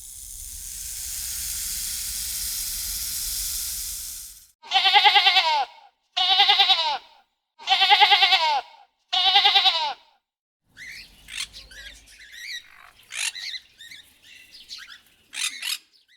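A steady hiss, then four loud wavering animal calls about a second and a half apart, followed by a run of short, high bird-like chirps.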